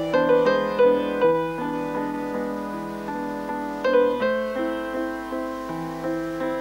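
Background solo piano music: a slow melody of struck notes, each fading away, over chords.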